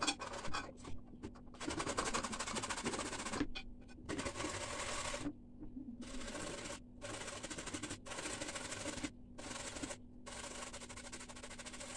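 A carrot being grated on a metal box grater: a series of rasping strokes, each about a second long, with short breaks between them.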